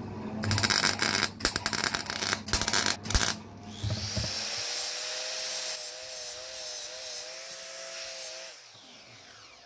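Stick (arc) welding: the electrode arcs against a small steel part in short, loud crackling bursts for about three seconds, building up weld on the part. A steady hiss with a faint wavering buzz follows and fades near the end.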